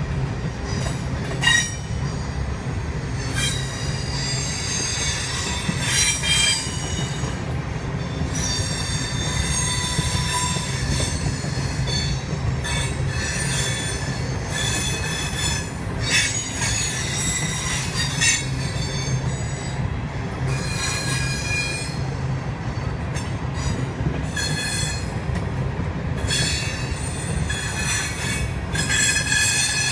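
Herzog ballast cars rolling past on the rails: a steady low rumble of steel wheels, with high-pitched wheel squeals coming and going every few seconds.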